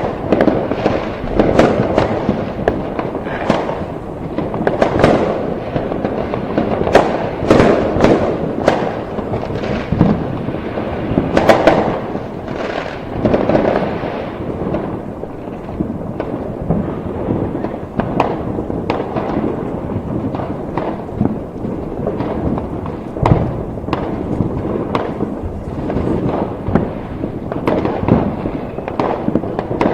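A fireworks display: many sharp bangs and crackles going off close together in an irregular barrage over a continuous rumble, busiest in the first half and thinning out a little in the second.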